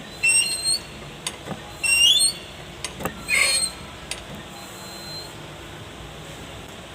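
Diesel injector on a hand-lever pop tester squealing as it sprays: three short, high-pitched squeals, each stepping up slightly in pitch, with a few sharp clicks between them in the first half. A faint steady hiss follows.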